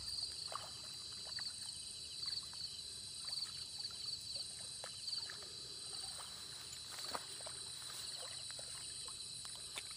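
Night insect chorus: a steady high-pitched trilling at two pitches, pulsing in quick rapid runs, with scattered short faint chirps or clicks underneath.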